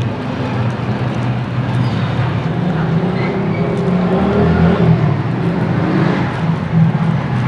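A motor vehicle engine running steadily with a low hum, slowly getting louder.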